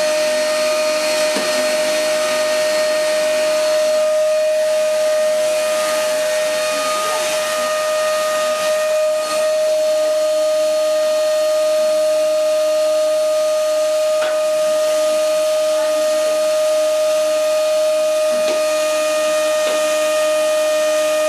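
Canister vacuum cleaner running steadily, its motor giving a constant whine over the rush of suction air, with a few light knocks of the hose and nozzle.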